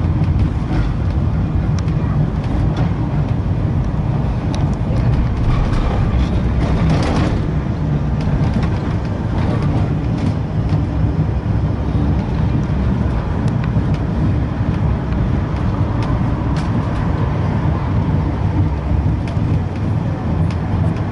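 Western Train heritage tram running along the promenade tracks, heard from inside its rear saloon car: a steady low rumble of wheels and running gear with scattered clicks.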